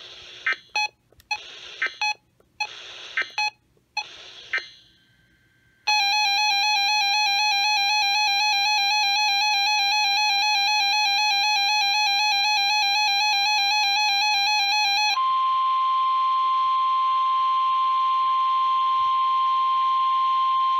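Emergency Alert System tones over weather radio: several short bursts of data screech, then about nine seconds of a wavering two-tone attention signal, then a loud steady single-pitch alarm tone. Together they announce the next warning message.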